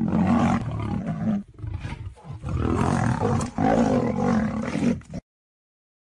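A lion and a white tiger roaring as they fight, in two long stretches with a short break about two seconds in. The sound cuts off suddenly about five seconds in.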